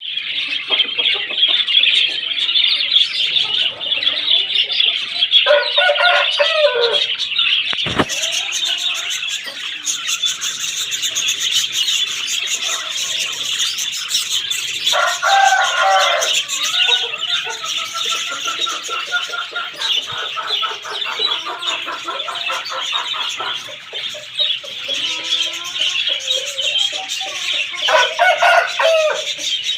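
A flock of budgerigars chattering and warbling without a break. Three times a louder, lower-pitched call from another bird cuts through, and there is a single sharp knock about eight seconds in.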